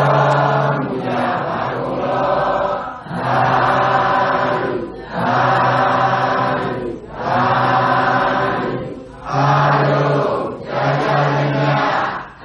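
Group of voices chanting a Buddhist devotional chant in unison, on steady held pitches, in phrases of about two seconds with short breaks between.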